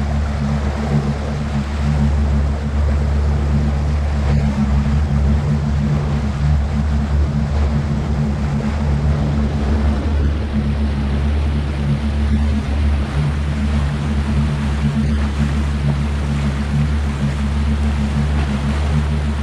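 A motorboat's engine running steadily at an even speed, with water rushing and splashing past the hull.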